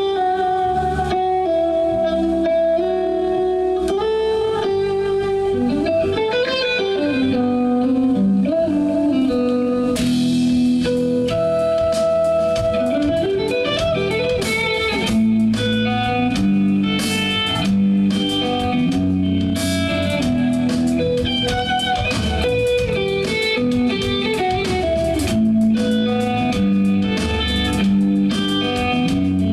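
Live band playing a blues-leaning instrumental led by a guitar melody of held notes, with a few notes sliding up and down in pitch over a steady bass line.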